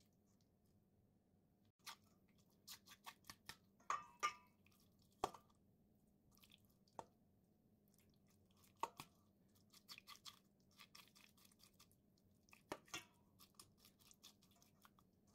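Faint wet scraping and squelching of a knife and fingers working grass carp roe free of its membranes in a stainless steel bowl, with scattered sharp clicks, a few of them louder, as the blade touches the bowl.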